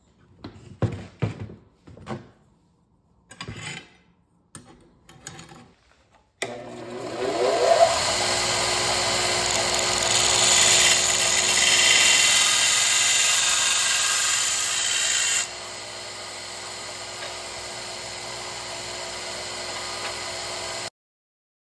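A few metal clicks and knocks as a steel knife blade is clamped into a bevel-grinding jig. About six seconds in, a belt grinder starts with a short rising whine and runs steadily, the blade hissing against the abrasive belt. After about fifteen seconds the grinding stops and the grinder runs on more quietly, then cuts off suddenly near the end.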